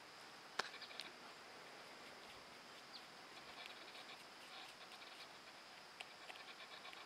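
North American porcupine chewing and gnawing an apple: faint, quick crunching clicks in runs, with one sharp bite about half a second in.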